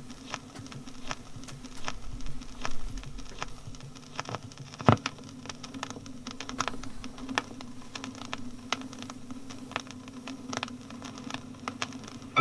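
Old bus-interior recording from a disc: a steady low hum of the bus running, with scattered clicks and crackle from the disc surface throughout and one louder knock about five seconds in.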